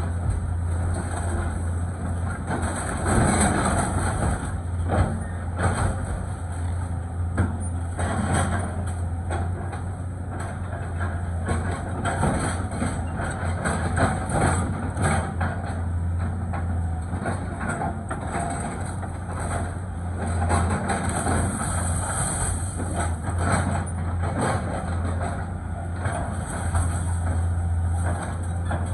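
Caterpillar tracked excavator's diesel engine running steadily while its arm tears into a wood-frame house, with repeated cracking and crashing of timber and falling debris.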